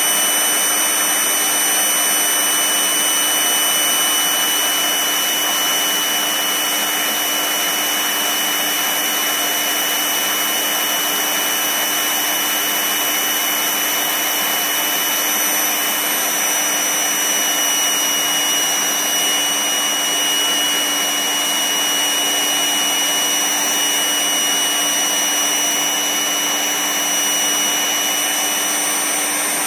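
Electric AC air pump running steadily, a motor whirr with a steady high whine over the rush of air, as it inflates a balance ball.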